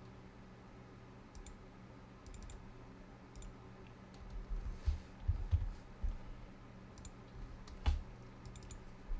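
Scattered clicks of a computer mouse and keyboard at a desk, irregular, with a few dull low thumps in the middle and one near the end, over a steady low hum.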